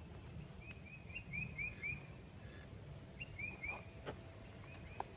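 A songbird singing outdoors: quick runs of short, downward-slurred high chirps, three runs in a row, over a low background rumble. A faint click sounds near the end.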